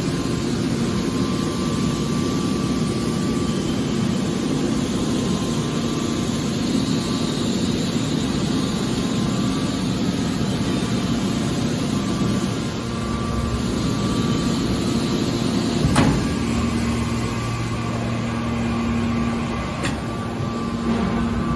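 Scrap aluminum hydraulic baler running, a steady electric motor and hydraulic pump hum with mechanical noise, and a single sharp knock about sixteen seconds in.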